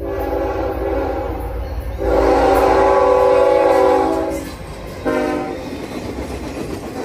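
Norfolk Southern diesel freight locomotive's air horn blowing as it passes close by: a long blast, a louder long blast about two seconds in, and a short blast about five seconds in. Underneath runs the low rumble of the engine and the cars rolling past.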